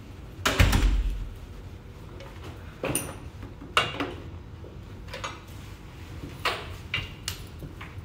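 A heavy thump about half a second in, then a run of light knocks and clicks as a drink can is set down on a desk and chairs are moved.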